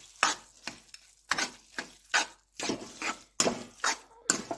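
A spatula stirs and scrapes grated carrot halwa around a hot pan in quick repeated strokes, about two or three a second. The mix sizzles in ghee and melted sugar as it fries.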